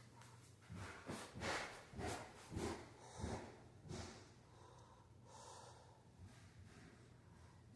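Casablanca Four Seasons ceiling fan running with a low steady hum, overlaid by a series of soft, irregular breathy whooshes, strongest in the first half and fading after about four seconds.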